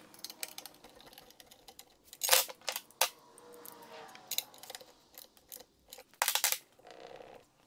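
Socket ratchet clicking in a few short runs as it tightens a bolt and nylock nut through the exhaust pipe's mounting bracket and bushing. The clicks are sharp and fairly quiet, with the loudest runs about two, three and six seconds in.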